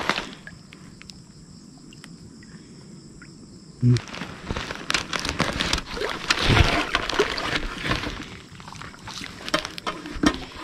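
Insects trilling steadily at night in high, thin tones; from about four seconds in, irregular splashing and sloshing of shallow water as someone wades and works with his hands in the creek.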